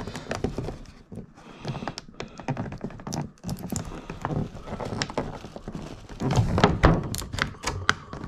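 Plastic toy packaging being handled: irregular knocks, clicks and rustles as a figure piece is worked free of its tray and retaining straps, busiest in the last couple of seconds.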